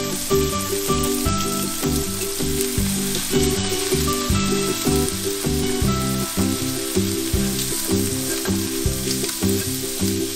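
Bacon, mushrooms and olives sizzling in a hot nonstick frying pan, a steady frying hiss, with background music of short pitched notes underneath.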